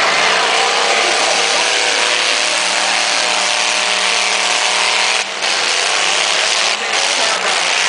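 Demolition derby cars' engines running and revving together as one loud, continuous din, their pitches wavering up and down. The level drops briefly twice, about five and seven seconds in.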